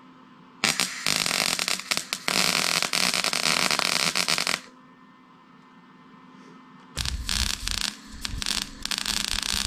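Electric welding arc crackling and sputtering in two runs, the first about four seconds long and the second starting about seven seconds in, each starting and stopping abruptly, with a faint steady hum in between.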